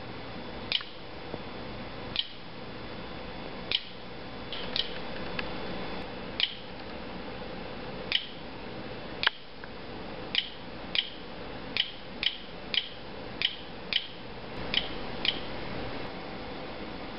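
Short, high-pitched electronic ticks, about seventeen at irregular intervals, coming faster in the second half, over a steady low hum.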